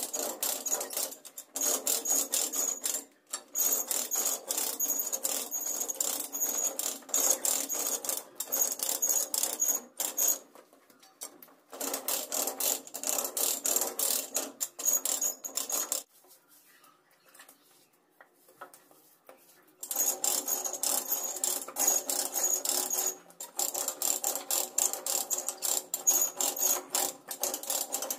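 Hand trowel scraping and rubbing across wet, gritty terrazzo mix in quick, repeated strokes, with a longer pause about two-thirds of the way through.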